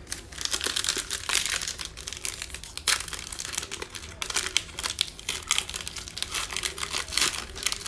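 Plastic-foil trading card pack wrapper crinkling as it is handled and torn open, a dense irregular crackle.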